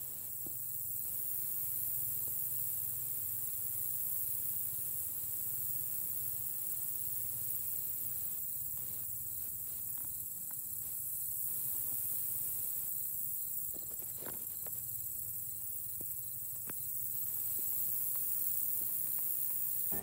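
Steady, high-pitched late-summer insect chorus, with a faint low hum beneath it.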